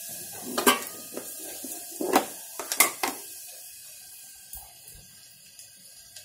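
Kitchen containers and a stainless steel spice box being handled on a countertop: several sharp metallic clatters in the first three seconds, then only faint handling sounds.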